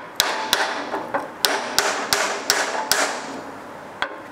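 Claw hammer tapping a wooden muntin bar down into an intersecting half-lap miter joint, seating the snug joint. There is a run of about nine sharp taps, roughly three a second, then a pause and one more tap near the end.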